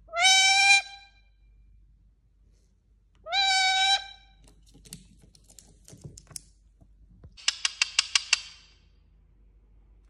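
Indian ringneck parakeet giving two short harsh calls, one at the start and one about three seconds in, then, about seven and a half seconds in, a quick run of about nine sharp clicks.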